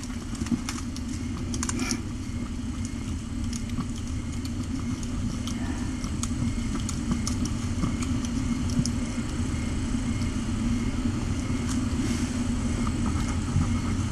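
A cat's close, steady purring: a continuous low rumble with a few faint clicks over it.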